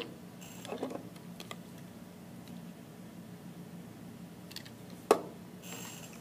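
Scattered small clicks and knocks from handling a plastic test vial and a reagent dropper bottle during a drop-by-drop calcium titration, with a sharp knock about five seconds in. A steady low hum runs underneath.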